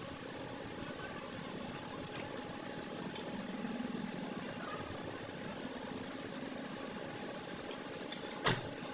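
Steady machinery hum with a single sharp knock near the end.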